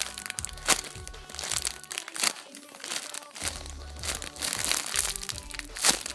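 Plastic packaging of a squishy toy crinkling and crackling in irregular bursts as it is handled, over background music.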